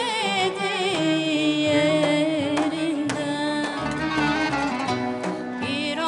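A woman singing a Turkish-style song with marked vibrato over instrumental accompaniment.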